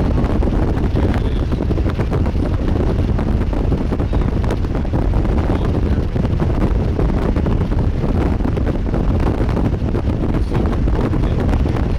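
Strong wind buffeting the microphone: a loud, steady, rumbling noise that flutters rapidly, with no break.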